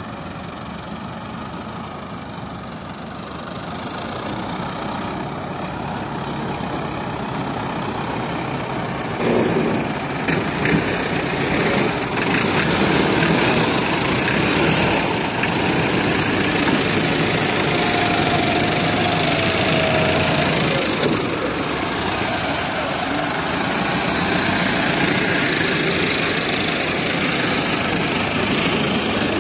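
Diesel tractor engine running steadily, growing louder about nine seconds in as it works harder or comes closer.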